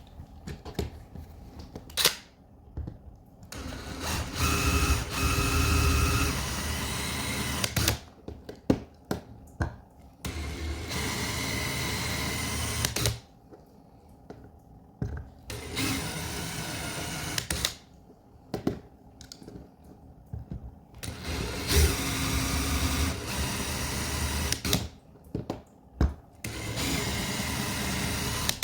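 Small electric drill drilling out the rivets of a die-cast toy car's base. It runs in bursts of two to three seconds, about five times, with clicks and handling noises between.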